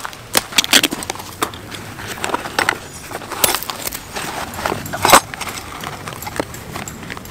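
Camping gear being rummaged by hand in a fabric storage box: rustling with scattered clicks and knocks, the sharpest about five seconds in.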